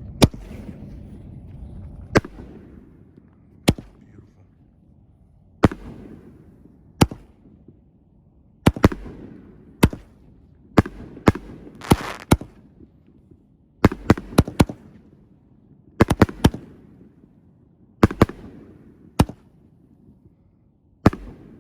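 5-inch canister firework shells (Windmill Super Max Extreme) firing one after another from mortar tubes: about twenty sharp bangs of launches and aerial bursts at irregular spacing, some in quick clusters of two to four, each followed by a rolling echo.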